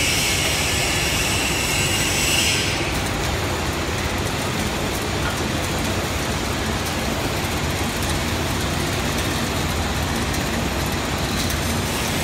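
Automatic ballpoint-pen dispensing and shrink-wrapping machine running with a steady mechanical noise as its star-wheel feeders drop pens from the hoppers onto the conveyor. A high hiss over the machine noise stops about two and a half seconds in.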